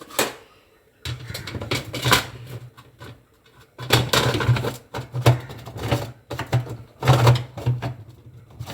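Clicking, knocking and rattling of dishwasher parts being handled: the drain filter being twisted open and taken out of the LG dishwasher's tub. There is one click just after the start, then an irregular clatter from about a second in, loudest in the middle and near the end.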